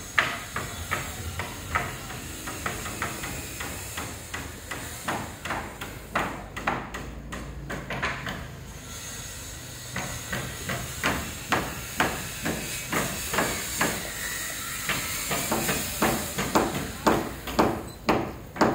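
Repeated sharp knocks of hand tools striking masonry, about two a second and uneven, with a short lull a little past halfway.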